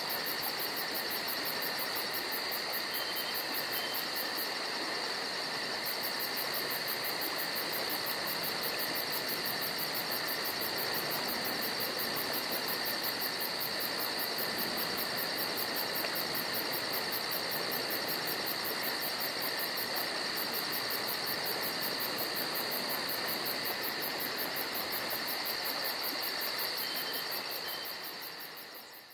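Steady chorus of crickets and other insects trilling at several pitches at once, the highest one a fast, even pulsing. It fades out near the end.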